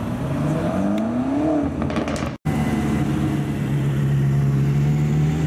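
A BMW saloon's engine revs up as it pulls away, its pitch rising for about a second and a half and then dropping. After an abrupt cut about two and a half seconds in, the Mercedes-AMG GT Black Series' twin-turbo V8 runs steadily at low revs.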